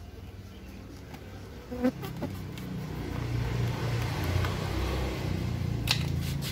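Buzzing of Trigona biroi stingless bees stirred up from their opened hive box, a low hum that grows louder from about two seconds in. A sharp tap comes about two seconds in, and near the end a plastic spoon clatters onto concrete.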